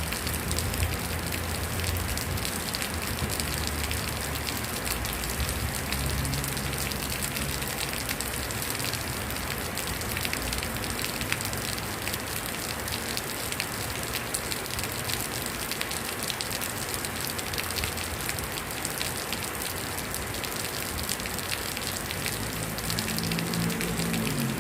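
Heavy rain pattering steadily on an old metal roof, a dense hiss of countless drops, with a low rumble in the first few seconds and again near the end.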